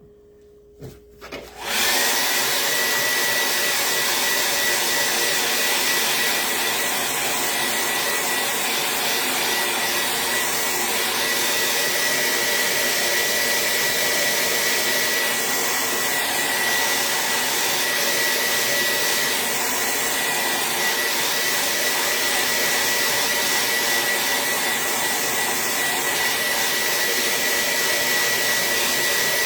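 Handheld dryer switched on about two seconds in and then blowing steadily and loudly, with a thin steady whine over the rushing air, drying a fresh second coat of paint.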